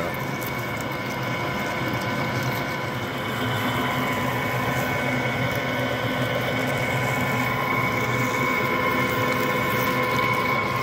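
Radial drill running steadily, its twist bit boring a hole of a little over 5/8 inch through thick steel plate. The sound is a constant machine hum with a few held tones.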